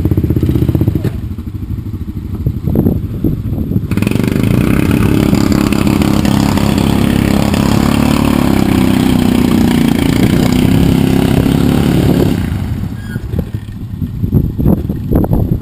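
ATV engine running, easing off about a second in, then held at high revs for about eight seconds before dropping back and running unevenly.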